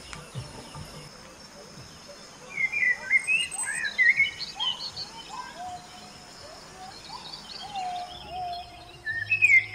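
Morning birdsong: several birds chirping and calling in short whistled phrases, busiest from about two and a half seconds in and again near the end.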